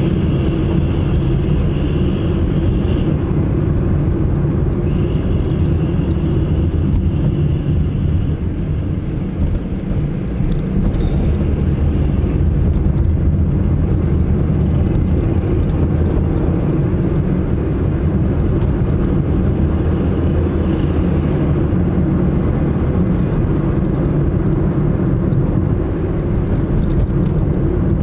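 Car driving through city streets: a steady low rumble of engine and road noise. A high steady tone sounds twice in the first eight seconds.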